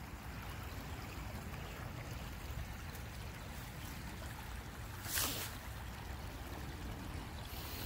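Shallow creek water flowing and trickling over stones, faint and steady, with a brief rush of noise about five seconds in.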